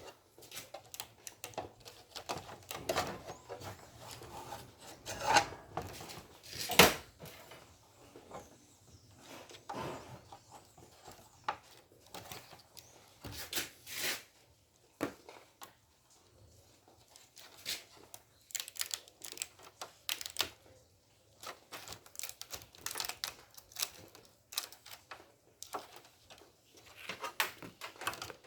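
Hands handling small parts while fitting a heating element onto a refrigerator's evaporator plate: irregular clicks, taps and light scrapes, with a sharp knock about seven seconds in.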